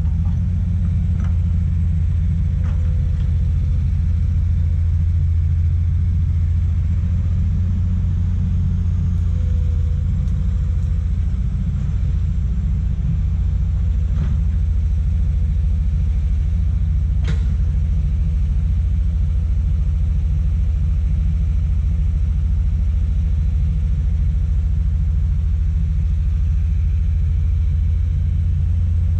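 Heavy diesel engine of a Komatsu PC200 excavator running steadily, a deep unbroken rumble, with a single sharp click about seventeen seconds in.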